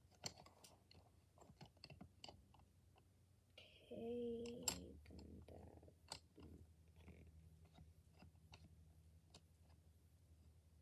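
Faint, irregular light clicks and taps of coloured drawing pencils knocking together as they are sorted by hand, with a short hummed vocal sound about four seconds in.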